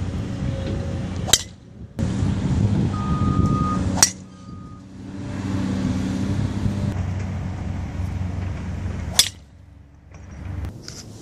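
Three sharp cracks of a PowerBilt Air Force One driver striking golf balls off the tee: about a second in, at about four seconds, and at about nine seconds. A steady low rumble runs underneath.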